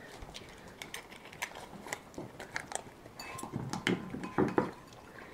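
Hound puppy feeding at its bowl on the floor: irregular soft clicks and crunches of eating. A few faint low voice sounds come in about three and a half to four and a half seconds in.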